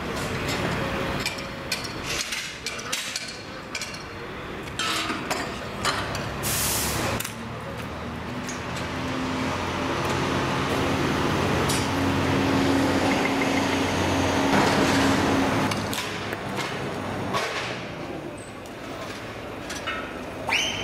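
Metal clanks and knocks as a fairground ride is taken apart, with a short hiss about six and a half seconds in. An engine runs steadily through the middle, swelling and then fading out about sixteen seconds in.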